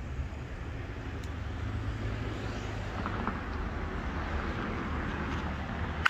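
Steady low outdoor background rumble, then a single sharp crack at the very end as a bat hits a pitched baseball.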